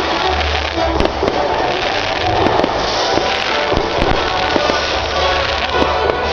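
Fireworks display: repeated sharp bangs and crackling bursts, with music playing underneath.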